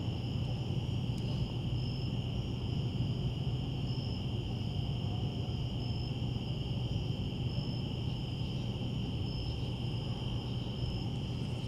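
Night insects, crickets, chirping steadily: a continuous high trill with shorter, higher chirps repeating every second or so. A steady low hum runs underneath.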